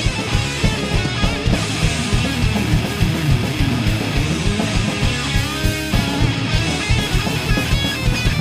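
Thrash metal instrumental passage: distorted electric guitars riffing over fast drums and bass guitar.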